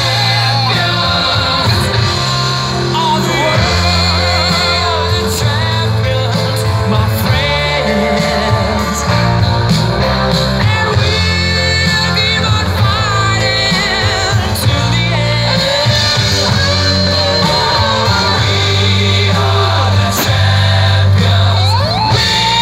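A song with a singing voice over a steady, stepping bass line, played loudly and continuously.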